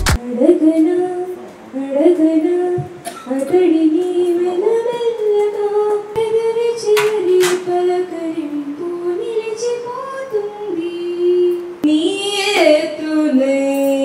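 A girl's solo voice singing a slow melody unaccompanied, with long held notes that step up and down.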